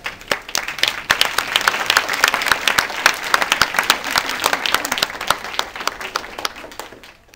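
Audience of schoolchildren applauding. The clapping builds within the first second, stays strong, then fades away near the end.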